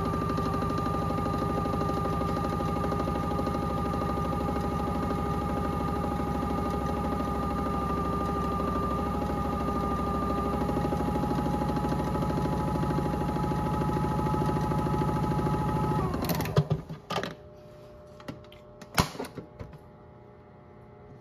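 Small electric motor of a modified toy front-loading washing machine running with a steady whine as the drum turns with water inside. About three-quarters through the whine slides down in pitch and stops, followed by a few sharp clicks and knocks as the door is handled.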